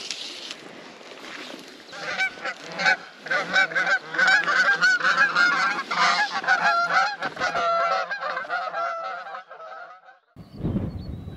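A flock of geese honking as it flies over, many overlapping calls from about two seconds in. The calls cut off suddenly near the end and give way to a low rumble of wind on the microphone.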